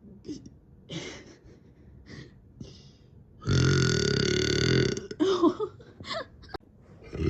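A person burping: one long, steady burp of about a second and a half starting about halfway through, then a few short sounds that slide in pitch, and another long burp beginning near the end. Faint breaths and small clicks come before the first burp.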